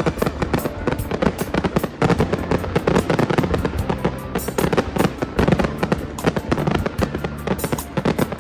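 Fireworks going off in a dense, continuous run of bangs and crackles, several a second, over music with steady low held notes.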